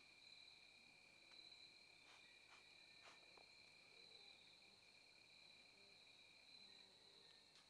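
Faint, steady chirring of crickets, two even high-pitched trills running together, with a few soft ticks about two to three seconds in.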